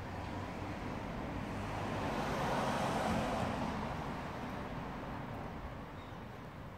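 A vehicle passing by: its noise swells to a peak about three seconds in, then fades away.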